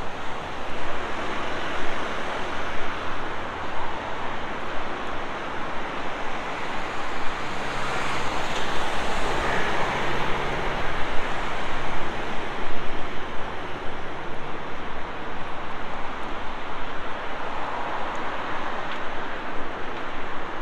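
Steady road traffic noise from a busy multi-lane city street. About eight seconds in it swells louder as a box truck passes close by, its engine hum audible, then fades back to the general traffic.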